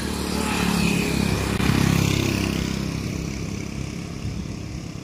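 A motor vehicle passing close by on the road: its engine grows louder about a second in, is loudest around two seconds, then fades with a falling pitch.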